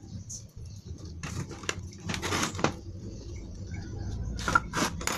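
Hands bundling wires with plastic cable ties: scattered rustles and light clicks at an uneven pace.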